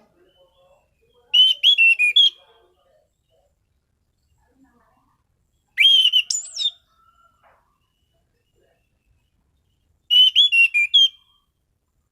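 Orange-sided thrush (anis cendana) singing: three short, loud phrases of quick whistled notes, each about a second long, with pauses of three to four seconds between them.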